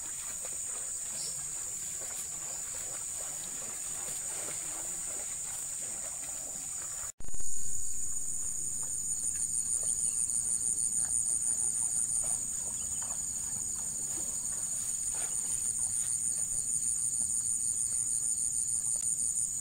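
Insects chirring in a high, steady drone. About seven seconds in, the sound cuts and comes back louder, the chorus pulsing rapidly.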